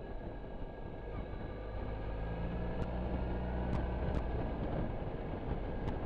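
Suzuki Burgman 650 scooter's parallel-twin engine running while riding along. The engine note grows stronger about two seconds in and eases again past the middle, with a few sharp ticks scattered through.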